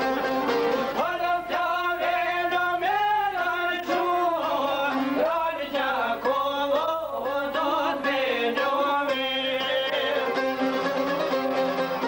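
Çifteli, the Albanian two-stringed long-necked lute, strummed over a steady drone while a voice sings an Albanian folk song. The singing comes in about a second in, with long, wavering held notes.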